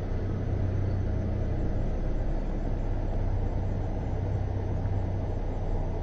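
Steady low rumble of a car driving, engine and road noise even throughout.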